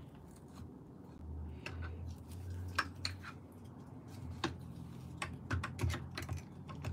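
Scattered light clicks and taps of a cordless drill/driver and screws being handled against the electric unicycle's metal pedal bracket, with a faint low hum at times.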